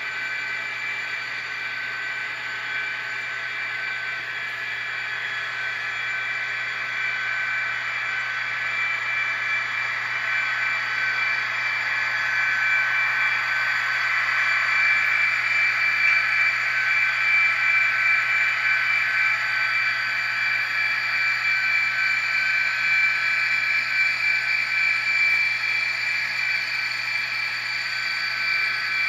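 ESU sound decoders in N scale diesel locomotives playing simulated diesel engine sound through their tiny speakers: a steady, tinny drone that grows louder toward the middle and eases off a little near the end.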